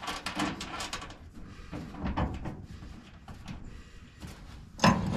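Scattered knocks and clanks of metal mounting hardware being handled and fitted, with one loud sharp knock near the end.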